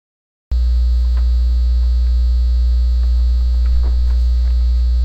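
Loud steady electrical mains hum with a ladder of higher overtones, running under the pause in the narration. It drops to dead silence for about half a second at the very start, then comes back unchanged.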